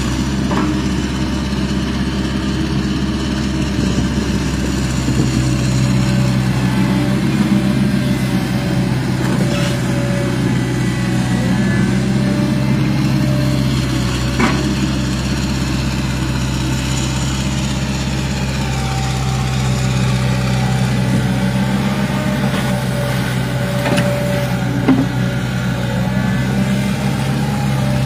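Hitachi hydraulic excavator's diesel engine running steadily with a low, even hum, with a couple of short knocks partway through.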